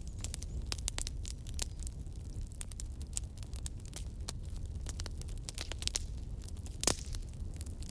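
Wood fire crackling, with a dense run of sharp pops and snaps over a low steady rumble of the flames, and one louder pop near the end.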